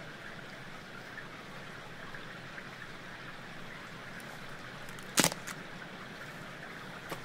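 Steady trickle and rush of running rainwater. About five seconds in comes one sharp crack of dry kindling wood being worked, followed by a couple of lighter clicks and another small click near the end.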